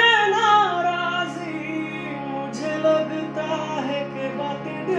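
A man singing a slow Hindi ballad melody with long, ornamented notes that bend in pitch, accompanied by a harmonium holding sustained chords underneath.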